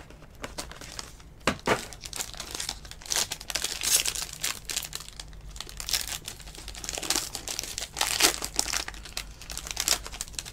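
Foil wrapper of a Topps Tier One baseball card pack crinkling and tearing as it is ripped open by hand, a dense irregular crackle.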